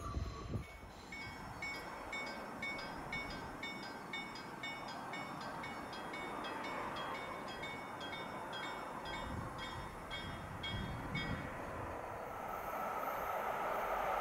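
Railway level-crossing warning bell ringing steadily at about two strikes a second, stopping near the end, while the rumble of a passing train dies away in the first second. A rising rushing noise starts just before the end.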